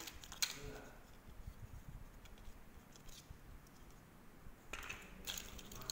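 Dry agarwood chips being handled on a tiled floor: a sharp click about half a second in, light scattered ticks, then a short stretch of rustling and scraping near the end as a piece is picked up.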